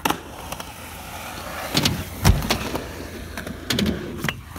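Skateboard wheels rolling over concrete with a steady rumble, broken by several sharp clacks of the board hitting the ground and ramp, the loudest a little after two seconds in and again near four seconds.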